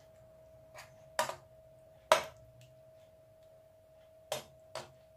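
Metal spoon knocking and scraping against a frying pan while stirring mince and tomatoes: about five sharp clicks, the loudest about two seconds in, over a faint steady hum.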